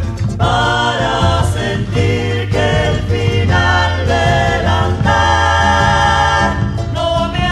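Andean folk song with sung vocals over instrumental backing and a steady bass line.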